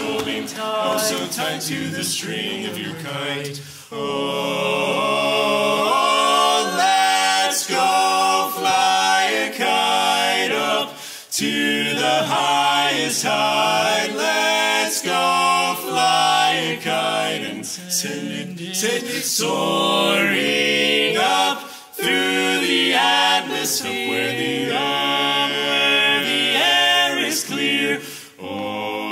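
Male barbershop quartet singing a cappella: tenor, lead, baritone and bass in four-part close harmony, with a few brief breaks between phrases.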